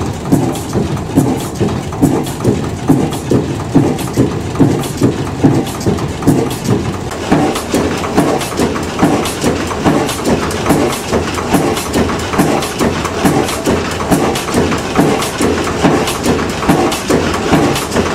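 Vintage stationary engine running steadily with an even, slow exhaust beat of about two beats a second. From about seven seconds in, a sharper mechanical clatter rides over the beat.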